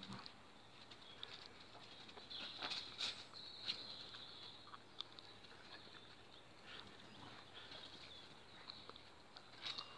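Faint patter and scratching of spaniels' paws and claws on patio paving slabs and gravel as they scuffle in play, busier and louder about two and a half to four seconds in.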